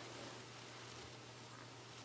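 Faint, soft rustling of cotton fabric pieces being handled, over a steady hiss and a low hum.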